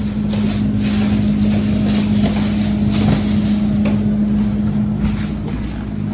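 Steady low mechanical hum, with rustling and a few light knocks over it.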